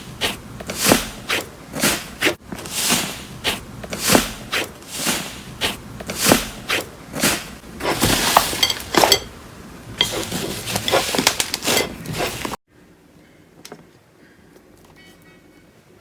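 Slime being handled and pressed, a run of squishing, crackling squeezes about one to two a second. It cuts off suddenly near the end into a much quieter stretch with a few faint clicks.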